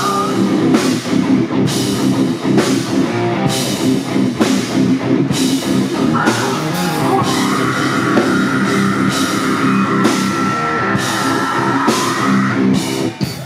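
Rock band playing live and loud: electric guitars, bass and drum kit with steady cymbal hits. A long high note is held over the band from about six seconds in until near the end.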